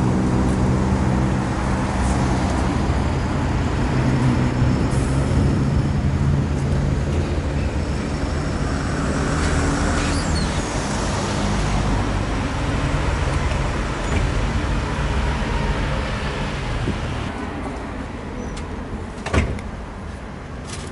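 Street traffic with a motor vehicle engine running steadily nearby; its hum fades out about three-quarters of the way through. A single sharp knock comes near the end.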